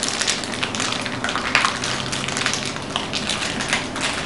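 Packaging being handled and unwrapped: irregular crinkling and rustling with scattered small clicks.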